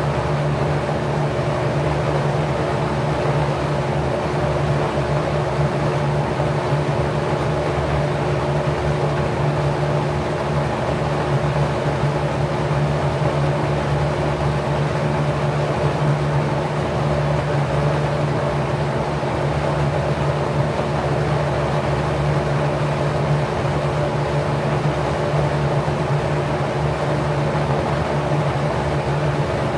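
Packard 99319 single-speed 1/5 hp motor running steadily at 1050 rpm, driving a 20-inch four-blade LAU propeller with 27° pitch: a steady rush of moving air over an even motor hum.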